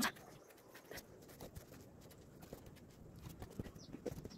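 Faint, irregular footsteps on a dirt path, with the rustle and knocks of a hand-held phone swinging while walking. A sharp handling knock comes right at the start.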